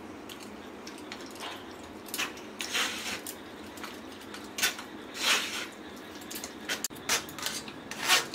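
Steel spoon scraping and pressing soft cooked lentils through a stainless steel mesh strainer, in a series of irregular short scrapes.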